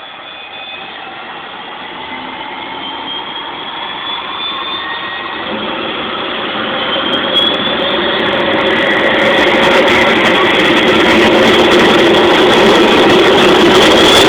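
Helicopter turbine whine with several high tones rising slightly in pitch, growing steadily louder.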